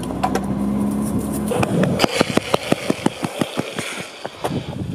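A car engine running steadily for about a second and a half, then a fast, even run of sharp clicks, about six a second.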